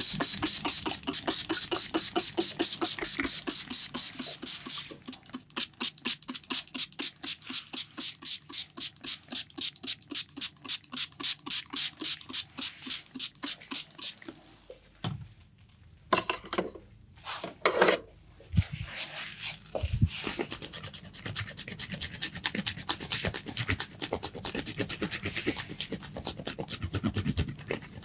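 Massage: hands rubbing briskly over skin in quick, even strokes, about four a second, which stop about fourteen seconds in. After a short pause comes slower, uneven rubbing.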